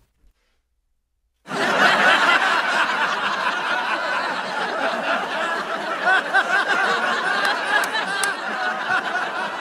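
Silence for about a second and a half, then continuous laughter that runs on steadily, dense and overlapping like several people or a laugh track.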